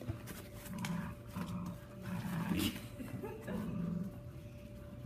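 Weimaraner puppies growling in play while tugging at a chew together: about four short, low growls, with small clicks of teeth and paws in between.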